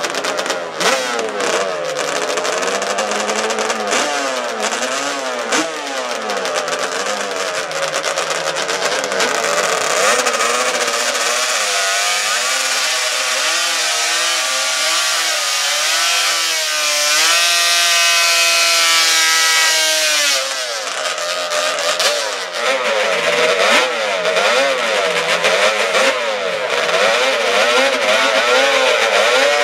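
Drag-racing ATV engines revving in quick blips at the starting line. One is run up and held at high revs for a few seconds during a tire burnout, then drops off sharply.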